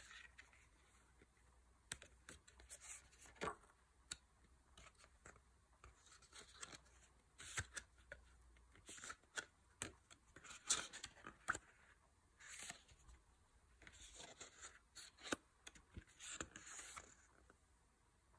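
Paper rustling as a stiff printed card booklet is handled and its pages turned, in short scratchy swishes and soft clicks, faint overall.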